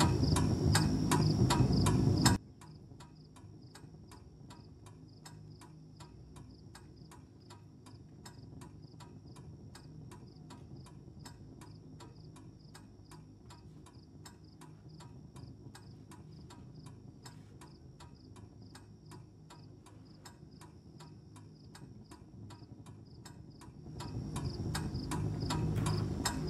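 Crickets chirping steadily with an even ticking, about four ticks a second. It opens with a loud rhythmic mechanical-sounding noise that cuts off suddenly about two seconds in, and a louder low noise comes up near the end.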